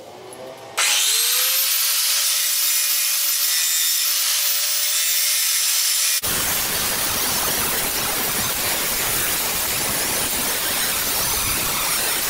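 An electric power tool switches on about a second in, its motor whine rising in pitch as it spins up and then holding steady under a loud hiss. About six seconds in, the sound changes abruptly to a harsher, fuller noise, which may be the tool working on metal.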